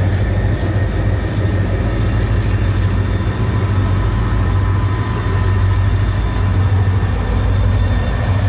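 Two Canadian National diesel freight locomotives passing close by, their engines a steady low drone with a thin steady whine above it. The autorack cars behind them then roll past.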